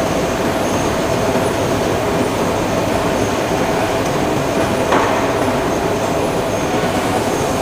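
Steady forge-shop machinery noise with a constant whine, and a single metallic knock about five seconds in.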